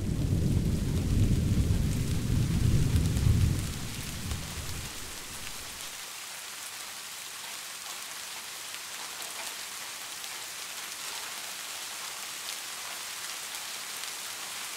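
Rain falling with a low rumble of thunder that dies away about four seconds in, leaving a steady patter of rain.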